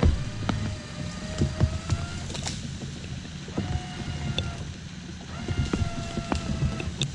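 Vehicle winch on a bogged Toyota 80 Series LandCruiser running in three short pulls, a whine that rises slightly in pitch during each, with scattered clicks and knocks.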